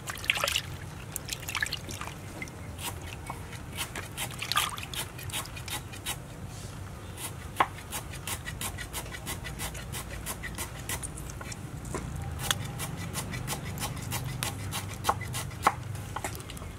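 Hands handling skinned frogs in a metal basin of water: splashing and dripping water, with many small wet clicks and squelches as the innards are pulled out. A louder splash comes near the start and another about four seconds in.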